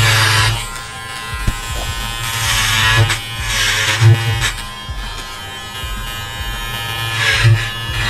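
Electric hair clipper running with a steady buzz, cutting the ends of the hair straight along the outline. Its blades hiss louder as they bite through the hair, mostly a few seconds in and again near the end.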